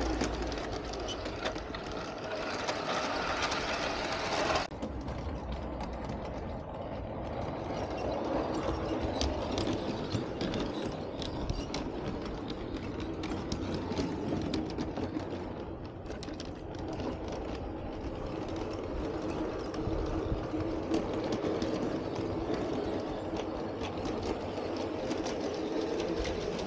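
Bachmann G-scale Diesel and Paxton model diesel locomotives running on garden railway track: a steady electric motor and gear whir with wheels clicking over the rail joints. The sound changes abruptly about five seconds in.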